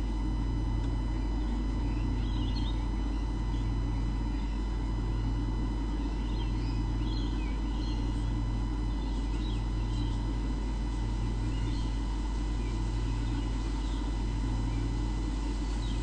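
A steady electrical hum with a low buzz pulsing on and off about every second and a half, and now and then faint chirps of small birds.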